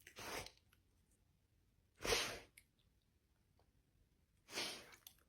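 A dog sneezing three times, about two seconds apart, with the middle sneeze the loudest.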